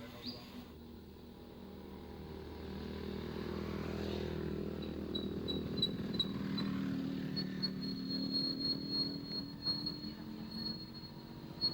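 A motor running, growing louder over the first few seconds and then easing off, with a thin high whistle coming in short pips and then holding steady.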